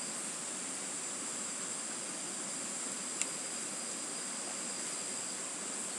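Steady chorus of crickets and other insects, a continuous high hiss with faint steady high tones, broken by a single short click about three seconds in.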